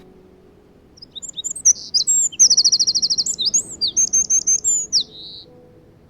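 Eurasian wren singing one loud, rapid song of about four seconds: quick high notes, then a fast even trill in the middle, and a short buzzy note at the end.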